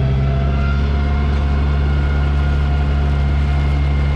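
An Amphicar's Triumph Herald four-cylinder engine running steadily as the amphibious car motors through the water, a loud, even low drone.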